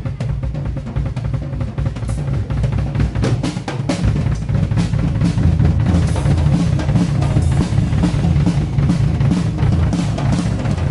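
Live rock drum kit played hard, with fast runs of snare and tom strokes over a driving bass drum and cymbal wash, getting louder about four seconds in.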